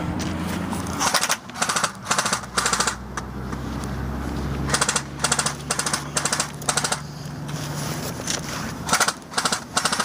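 Airsoft electric gun (AEG) firing short full-auto bursts, a rapid mechanical rattle. There are about a dozen bursts in three groups: three near the start, five in the middle and three near the end.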